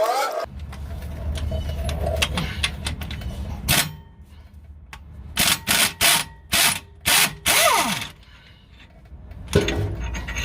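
Impact wrench hammering at a brake caliper bolt in about five short bursts, breaking it loose. A low steady hum runs beneath at the start and again near the end.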